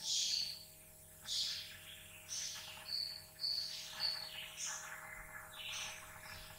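Faint bird chirping: short high chirps repeating about every half second to a second.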